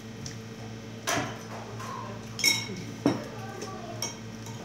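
Cutlery clinking and knocking against a plate four times during a meal, the brightest, ringing clink about two and a half seconds in, over a steady low hum.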